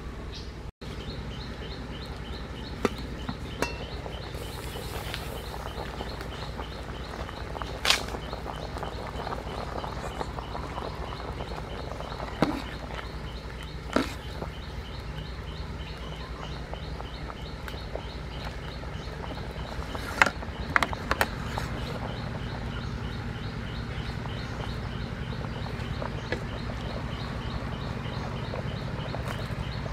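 Outdoor cooking over a wood fire: a metal ladle now and then knocks against a steel pot of simmering lotus seeds, a few sharp clicks with a cluster about two-thirds of the way through. Behind it runs a steady, fast-repeating high chirping.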